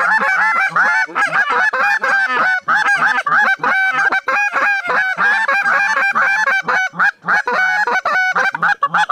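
Goose honking: many loud, overlapping honks, several a second, continuous with no pause.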